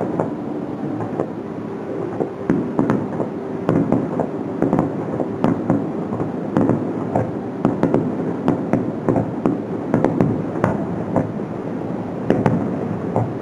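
Aerial fireworks shells bursting in a rapid, continuous barrage, with several sharp bangs and crackles a second over a steady rumble of echoes.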